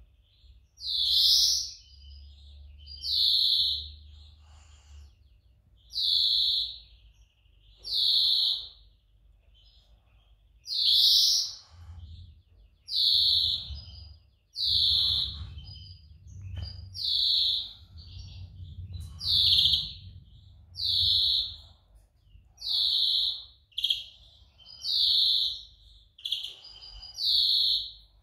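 European greenfinch giving a series of loud calls, about one every two seconds.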